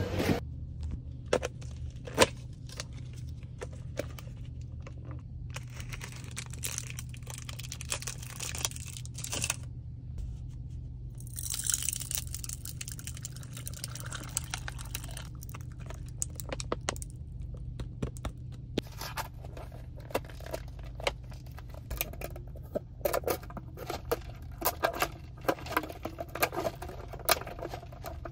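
Plastic snack packaging and an iced drink in a plastic cup being handled: crinkling, tearing and many small clicks and taps, over a steady low hum.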